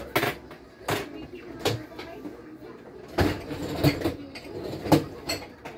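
Kitchen clatter: a string of sharp knocks and clinks, about eight in all, the loudest a little past halfway through.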